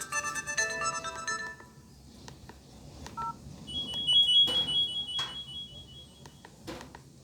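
Cell phone speaker playing a MIDI Nokia ringtone that stops about a second and a half in, then short electronic beeps, a thin high trilling tone and a few sharp clicks.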